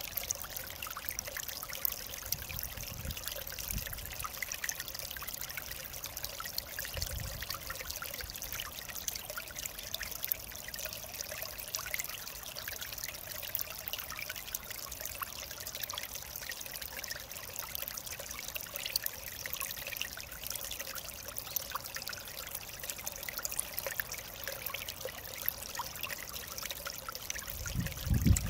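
Mountain stream flowing over rocks: a steady rush of water with fine trickling and splashing detail. A few brief low rumbles come through, the strongest near the end.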